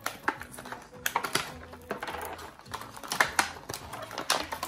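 Small toy-accessory packet being picked open by hand: quick irregular crinkles and clicks as the wrapping is pulled apart.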